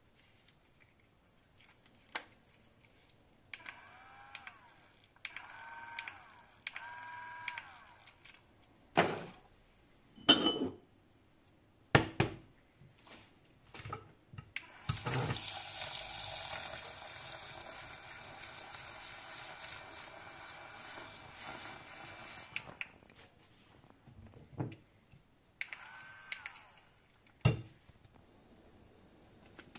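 Battery-powered handheld milk frother: a few brief whining runs of its small motor, then its coil whisk spinning in a mug of milk for about eight seconds, a steady churning whir. A few sharp knocks come in between.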